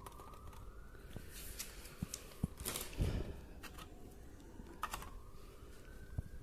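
Light clicks, taps and rustles of small plastic parts being handled while repairing a dishwasher button with glue and baking soda, with a louder rustle about three seconds in. A faint tone slowly rises and falls in the background.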